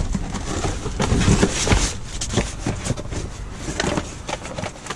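Papers, cardboard and other trash being rummaged through by gloved hands: irregular rustling and crinkling with scattered knocks and thumps, busiest in the first couple of seconds.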